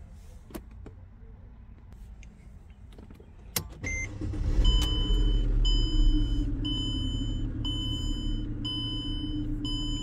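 Mercedes E-Class car is started with a click: its engine comes up and runs steadily with a low rumble and hum. A dashboard warning chime beeps about once a second over it.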